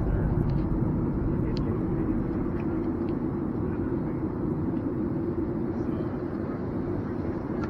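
Airliner cabin noise: a steady low rumble with a steady hum running through it, heard from inside the passenger cabin, with a faint tick now and then.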